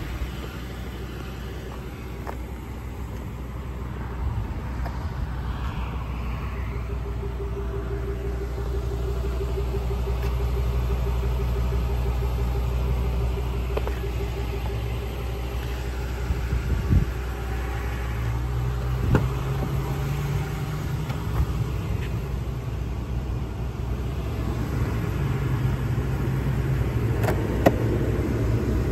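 Ford 6.8-liter V10 gas engine idling with a steady low rumble. A few sharp clicks near the end, as the glove box is opened.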